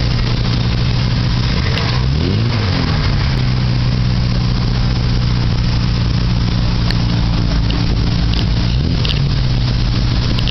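A vintage Jaguar XK roadster's straight-six engine running at a steady low idle as the car creeps forward. It gives a short rev blip, pitch rising then falling, about two seconds in, and a smaller one near nine seconds.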